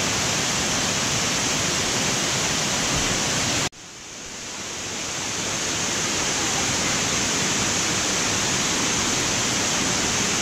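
Water rushing steadily down the terraced cascades of Kaparkan Falls. A few seconds in the sound cuts out abruptly, then swells back up over the next two seconds.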